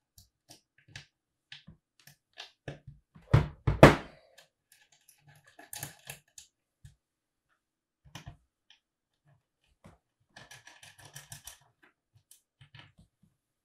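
Small scattered clicks and taps of screws and a hex key being worked on a telescope camera rotator's metal housing, with two louder knocks about three and a half to four seconds in and a quick run of ticks near the end.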